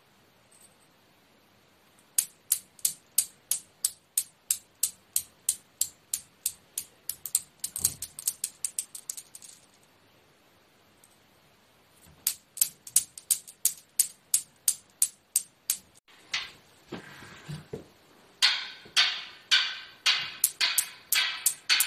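Steel balls of a homemade Newton's cradle clicking against each other in a steady rhythm, about three clicks a second, dying away and stopping about halfway through. The clicking starts again, and in the last few seconds the clicks are louder and ring on briefly, about two a second.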